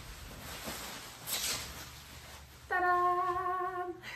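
Plastic wrapping rustling and crinkling as it is pulled off and lifted away. Then, near the end, a single held note sounds for just over a second and cuts off suddenly.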